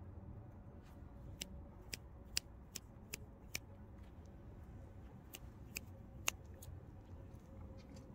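Bantam chickens pecking at grass close by: about ten sharp, irregular beak clicks and snips, over a faint steady hum.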